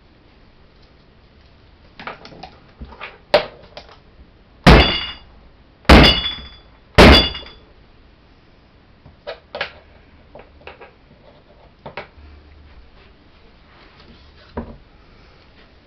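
A loaded wooden soap loaf mould knocked hard on the work table three times, each knock with a brief ringing, among lighter taps and clicks, settling the freshly poured soap batter.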